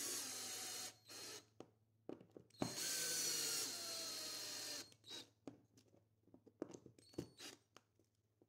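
Cordless drill-driver driving small screws through a metal plate into a wooden knob: the motor runs in short bursts, then in one longer run of about two seconds whose whine drops slightly in pitch. Scattered light clicks and taps of handling follow.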